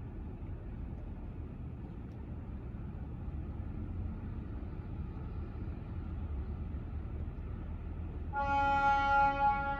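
Steady low rumble of harbour ambience. About eight seconds in, a ship's horn sounds one loud, steady blast.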